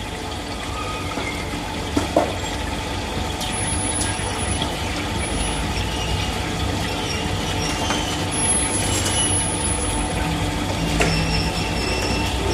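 Four-axis EDM machine running: a steady mechanical hum and hiss, with two sharp clicks about two seconds in.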